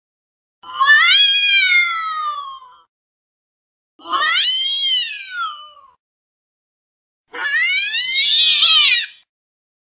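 Domestic cat meowing three times, each long call rising then falling in pitch, the last one rougher.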